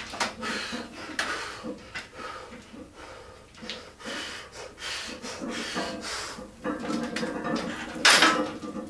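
A powerlifter's heavy, forced breathing and short straining grunts while working under a heavy barbell squat, with the loudest gust of breath about eight seconds in.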